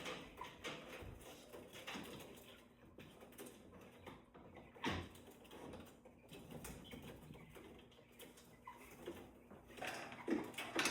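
Faint knocks and handling noises from cage-cleaning work, with a louder knock about five seconds in. A soft, low bird call comes twice near the end.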